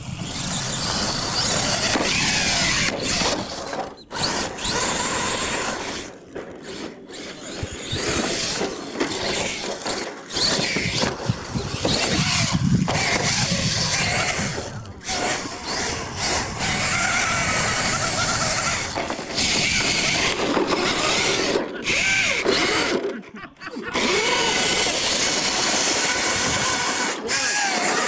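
Electric R/C monster truck's motor whining in repeated throttle bursts as it is driven hard on dirt, the whine rising and falling and dropping out briefly several times when the throttle is let off.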